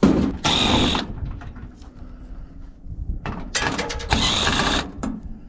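Cordless drill-driver running in two short bursts, backing screws out of a dryer's sheet-metal top panel. The second run is the longer.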